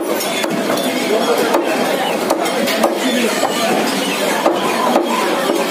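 Large butcher's knife chopping chicken on a wooden log block: several sharp knocks at uneven intervals, over a steady background of market chatter.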